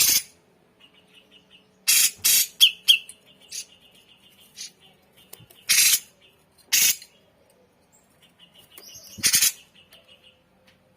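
Cucak jenggot (grey-cheeked bulbul) giving loud, short, harsh calls, about six in all, spaced irregularly. A fainter, rapid, even trill at one pitch runs between them.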